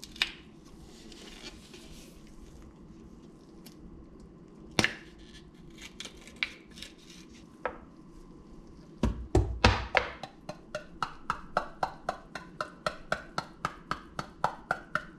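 A metal tin of tuna being opened on a wooden board: a few scattered knocks and taps, a cluster of heavy thumps about nine seconds in, then an even run of sharp metallic clicks, about three a second, to the end.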